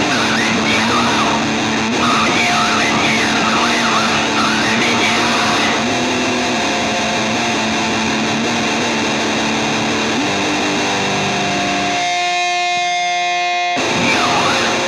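Loud, distorted music, dense and noisy, with held tones. About twelve seconds in, the low end cuts out for nearly two seconds, leaving one thin held tone with many overtones, before the full distorted wash comes back.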